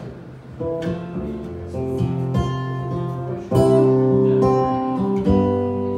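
Solo acoustic guitar playing the instrumental outro of a song: picked chord notes ringing in after a short pause, with a louder strum about three and a half seconds in.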